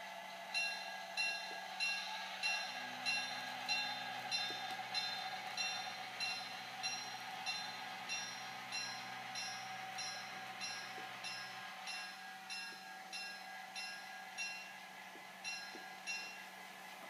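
Onboard sound system of a Precision Craft New York Central E7 model diesel locomotive ringing its bell, about one and a half strikes a second, over the steady hum of its diesel engine sound as the model runs along the track.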